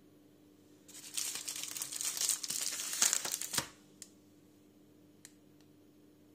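Plastic snack packets crinkling loudly as they are handled and swapped for about two and a half seconds, followed by a couple of light ticks.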